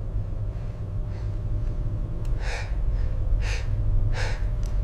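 A person breathing hard, three short gasping breaths about a second apart in the second half, over a steady low rumble.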